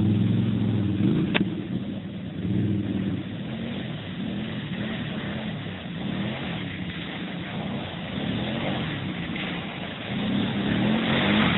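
Quad bike (ATV) engines revving up and down as the quads churn through deep mud, growing louder near the end as one passes close by.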